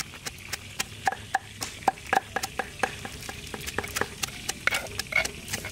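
Metal spoon scraping and tapping against a stone mortar as pounded paste is scooped out onto a metal tray: a run of light, ringing clicks, about three a second.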